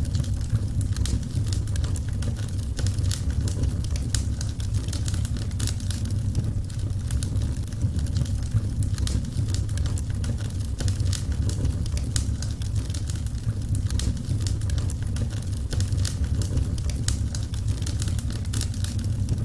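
Wood fire crackling, with frequent irregular small pops and snaps over a steady low rumble of burning.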